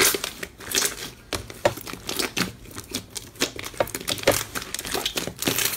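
Thick slime being kneaded and squeezed by hand: a dense, irregular run of sticky crackles and pops, several a second.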